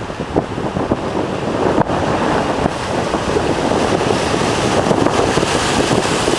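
Typhoon wind buffeting the microphone in loud, irregular gusts over the rush of large storm waves breaking on the shore, growing louder about a second and a half in.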